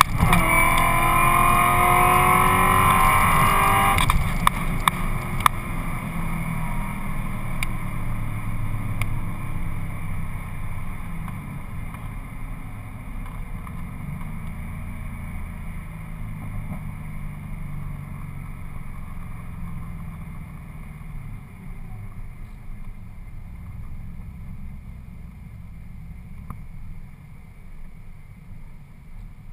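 Cadillac CTS-V coupe's supercharged V8 with Borla exhaust heard from inside the cabin at full throttle: right at the start the pitch drops with an upshift, then climbs again for about four seconds. The throttle then closes at the end of the quarter-mile pass, with a few sharp clicks, and the car coasts down while engine, tyre and wind noise slowly fade.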